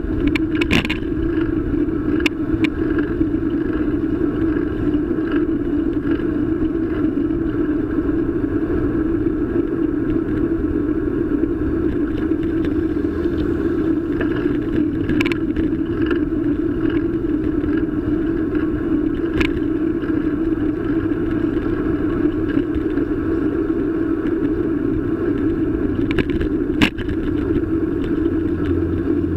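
Steady loud rumble of wind and road vibration picked up by a camera mounted on a moving bicycle, with a few sharp clicks and knocks from the mount as it jolts over the road. The camera's placement makes it pick up these loud noises.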